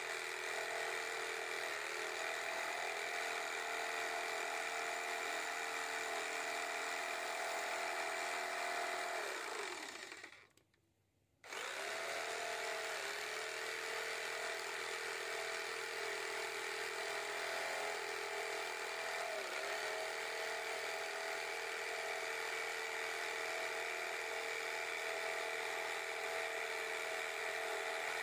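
Reaim 450 W electric jigsaw cutting a circle in plywood, its motor running with a steady drone whose pitch dips briefly a couple of times. Around ten seconds in the motor winds down and stops for about two seconds, then starts again and runs on.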